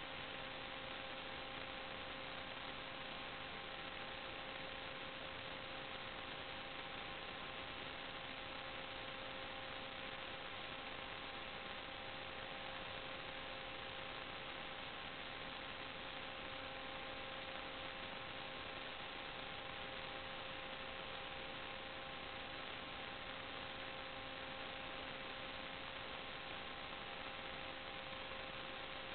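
Steady electrical hiss with a faint hum made of several steady tones, unchanging throughout: electrical noise on the sewer inspection camera's recording.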